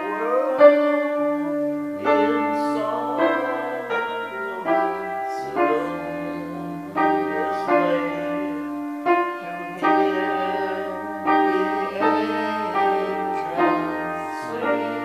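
Piano playing a slow run of chords, a new chord struck every second or so and left to ring.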